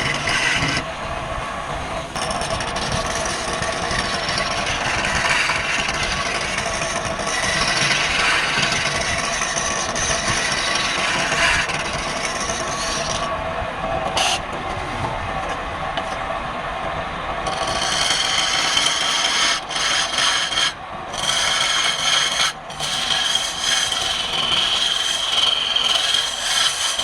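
A woodturning lathe runs while a hand-held tool works the spinning wood, giving a continuous scraping rasp over a steady hum. About two-thirds of the way through, a higher steady whine joins in, and the sound briefly drops out twice soon after.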